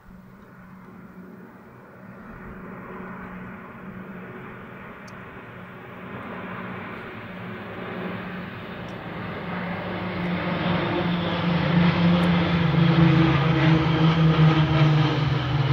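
A formation of four PZL M28 Bryza twin-turboprop aircraft flying overhead. Their steady propeller drone grows louder as they approach and is loudest over the last few seconds.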